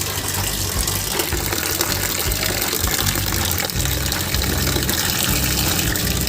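Water running steadily, like a tap filling a basin, with low bass notes underneath.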